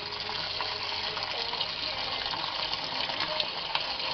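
Samsung WA89V9 top-loading washing machine filling its drum with water at the start of a wash: a steady rush of incoming water.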